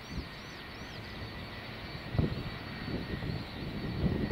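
Boeing 757-200's twin jet engines running at low power as the airliner rolls on the runway: a steady rumble with a faint, steady high whine, and uneven low surges.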